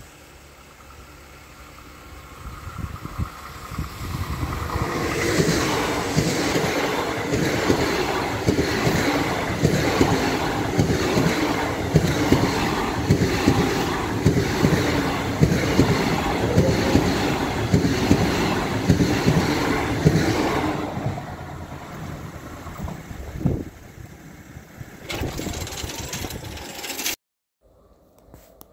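ICE-T high-speed electric train passing at speed. A rising rush as it approaches, then a loud steady rumble with a rhythmic clatter of wheels on the track for about fifteen seconds, fading as it goes by. The sound cuts off suddenly near the end.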